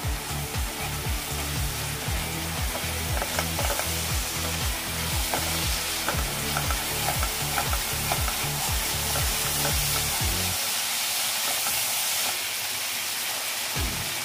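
Chopped tomatoes and crushed ginger-garlic frying in hot oil in a nonstick kadhai, sizzling steadily, while a spatula stirs and scrapes through them with short soft clicks against the pan.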